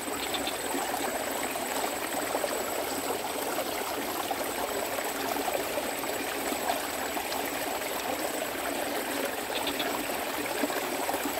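Steady rush of flowing water in a small stream-fed ditch, an even water noise that does not change, with a faint steady high whine above it.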